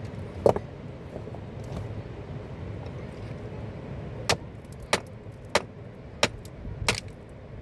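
A single sharp knock about half a second in, then five sharp knocks evenly spaced about two-thirds of a second apart in the second half, over steady background noise.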